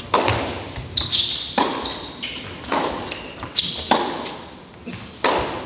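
Tennis rally: a ball struck back and forth by racquets and bouncing on the court, about one sharp pop a second, each ringing out in a large indoor hall.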